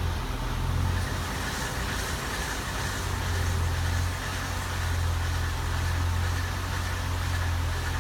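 2007 Ford Crown Victoria running with a steady low drone, and a faint steady high-pitched tone above it.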